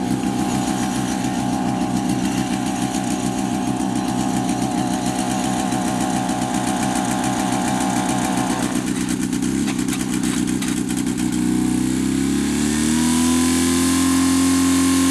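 Portable fire pump's small petrol engine running steadily, then revving up about eleven seconds in and holding at a higher pitch as the pump is throttled up to send water through the hoses.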